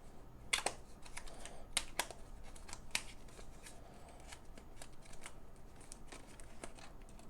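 Small cardboard retail box being handled and worked open by hand: scattered light clicks, taps and scrapes of the card, a few sharper ones in the first three seconds.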